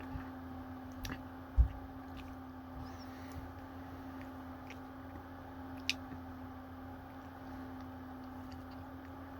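Steady low hum with a few light clicks and one short low thump about one and a half seconds in, the small handling noises of someone eating from an ice cream container.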